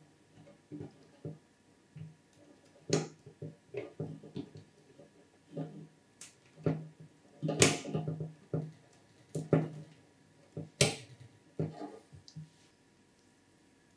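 Irregular clicks, taps and knocks of computer hardware being handled as a power supply and its cables are fitted into a PC case, with a few sharper, louder clacks.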